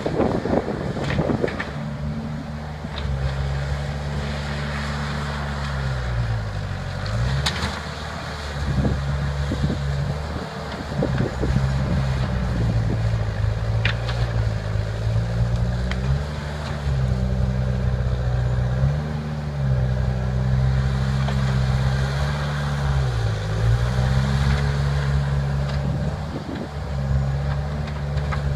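Engine of a heavy machine working at the base of a tree, its pitch dipping several times as it lugs under load and then recovering. A few sharp cracks or knocks stand out above it.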